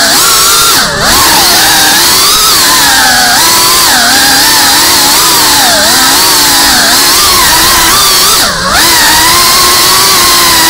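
5-inch FPV quadcopter's brushless motors and propellers whining loudly, the pitch rising and falling constantly with the throttle. The whine drops sharply and climbs back twice, about a second in and again near the end.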